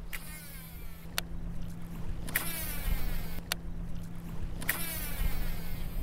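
Baitcasting reel working through a cast: three short whirs from the spool and several sharp clicks about a second apart, over water lapping around the wading angler.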